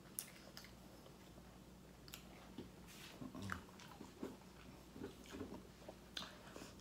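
Quiet eating sounds: biting and chewing fast food, with scattered soft clicks and small mouth sounds.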